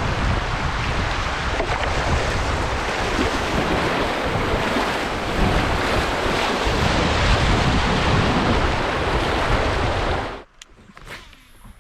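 Rushing creek water with wind buffeting the microphone, a steady loud rush with gusty low rumble that cuts off suddenly about ten seconds in. A few faint clicks follow.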